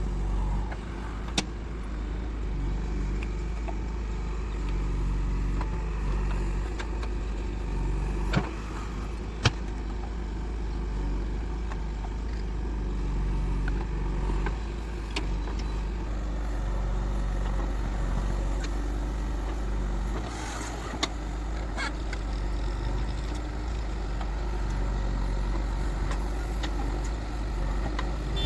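JCB 3DX backhoe loader's diesel engine running steadily while it works, with a few sharp clicks and knocks of metal or soil.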